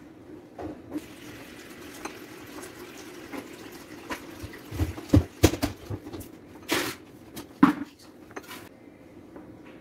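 A silicone pastry brush dabbing a wet wash onto unbaked cinnamon rolls in a glass baking dish, with scattered taps and knocks against the dish, the loudest a little past the middle, over a steady low hum.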